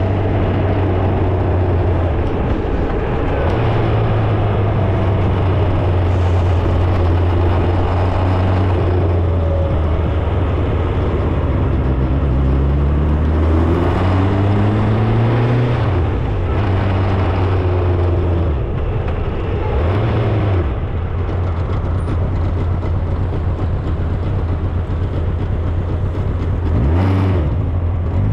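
Vehicle engine running during a drive in traffic, with road noise; its pitch rises and falls several times as the vehicle speeds up and slows down.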